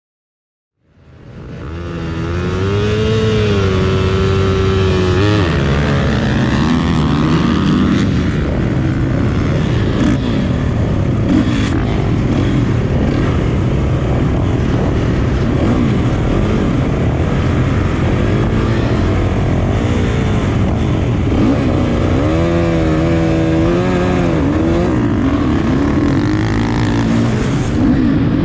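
Dirt bike engines running at race pace: one engine revs up and down through the gears, its pitch rising and falling, over a dense steady bed of engine noise. The sound comes in about a second in.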